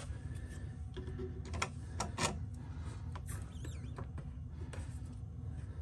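Scattered light clicks and knocks as a steel jack handle is fitted to the release valve of a 20-ton hydraulic bottle jack to let the pressure off, over a steady low hum.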